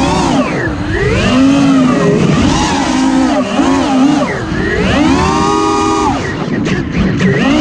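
FPV quadcopter's brushless motors and propellers whining, the pitch swooping up and down over and over as the throttle changes, with a few brief crackles near the end.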